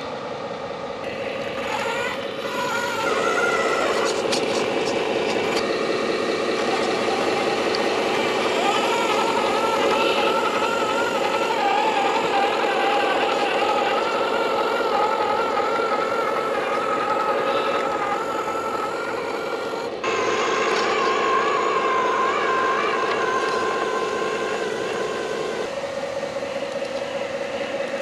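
Radio-controlled scale trucks driving, their motors and drivetrains giving a steady whine whose pitch wavers with the throttle. The sound changes abruptly twice, about two-thirds of the way through and again near the end.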